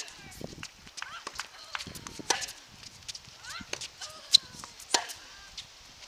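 Tennis rally on a hard court: sharp pops of racket strings hitting the ball and the ball bouncing, every second or two, the loudest about four seconds in.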